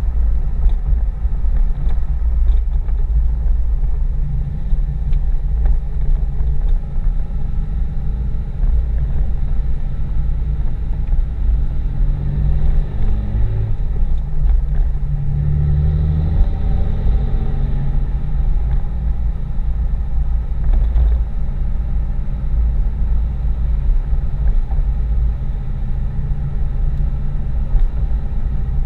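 5.9L Cummins inline-six turbodiesel in a Dodge Ram 2500 running under way, heard from inside the cab as a steady low rumble. About halfway through, the engine note drops and then climbs again as a gear is shifted on the G56 six-speed manual.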